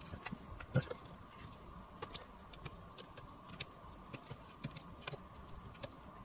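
Scattered light clicks and taps of small parts and screws being handled while a cassette deck's front panel is reassembled, the clearest about a second in, over a faint steady hum.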